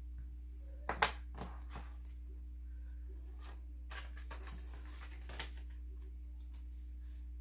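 Paper banknotes rustling and a few light clicks and taps as cash is handled, the sharpest click about a second in; a steady low hum underneath.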